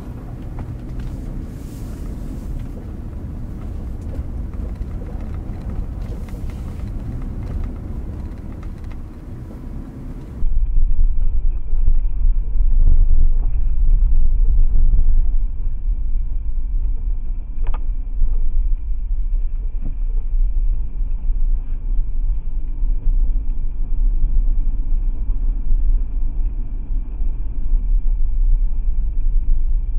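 Cabin noise of a 2017 Toyota 4Runner crawling along a bumpy dirt road: a steady low rumble of tyres and engine. About ten seconds in, the sound switches to a cheap dash cam's own recording. It is louder and boomier, dull with no treble, and carries a faint steady high whine.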